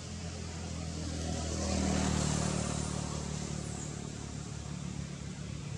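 A motor vehicle's engine passing by. It grows louder to a peak about two seconds in, then slowly fades back to a steady low hum.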